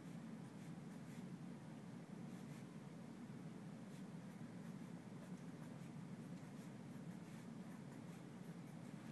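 Faint scratching of writing on lined notebook paper as a molecular shape is drawn, in short irregular strokes over a steady low room hum.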